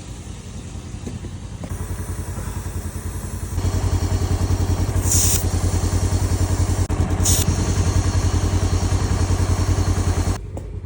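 Air compressor motor running with a steady pulse, getting louder about a third of the way in as it works to inflate a low tire, with two short hisses of air, about five and seven seconds in.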